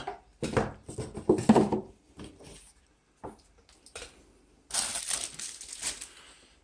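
Unboxing packaging being handled and crumpled up: a few knocks early, then a loud stretch of crinkling and crushing about two-thirds of the way in.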